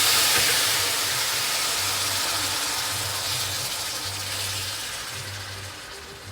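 Marinated beef cubes sizzling in hot olive oil in a pan: a loud, steady sizzle that slowly dies down as the wet marinade cooks off.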